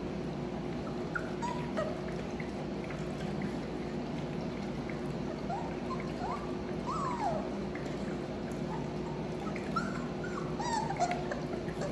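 Four-week-old labradoodle puppies squeaking and whimpering in short, high-pitched yips as they play-wrestle, scattered through, with a cluster about six to seven seconds in and more near the end, over a steady low hum.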